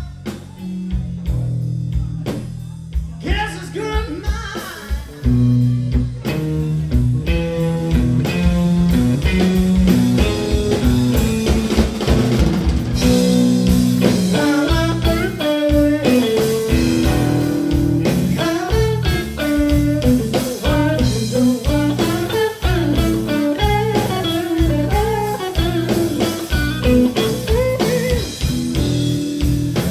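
Live blues-rock trio playing: electric guitar over bass guitar and drum kit. It starts sparse and fills out as the full band comes in about five seconds in.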